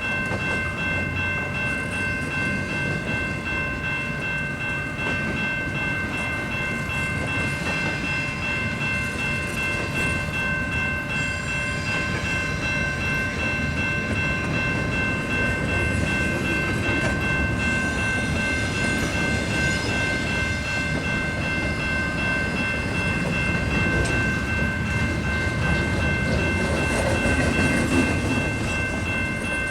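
Intermodal double-stack freight train rolling past at close range, a steady rumble of wheels on rail with a constant high-pitched whine held over it.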